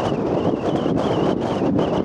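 Storm wind blowing hard and buffeting the microphone, a steady rush with a thin wavering whistle high above it.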